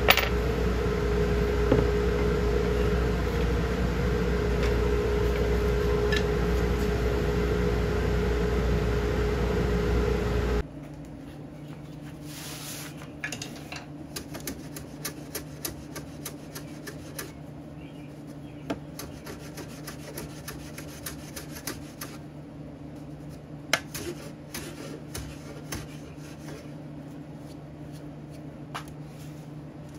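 A machine runs loudly and steadily with a constant whine, then cuts off suddenly about ten seconds in. After that comes hand sanding of a walnut kumiko lattice with sandpaper on a fingertip: quiet rubbing with many small irregular ticks over a low steady hum.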